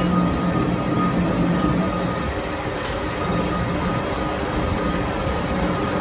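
Workshop machinery running steadily, with a constant low hum and a faint high tone over a dense mechanical noise.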